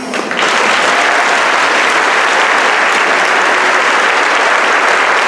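A large audience applauding: clapping breaks out suddenly about half a second in and carries on steady and loud.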